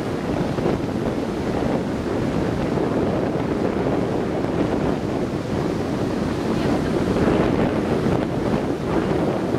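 Storm wind buffeting the microphone over heavy surf breaking on the shore, a steady rushing roar.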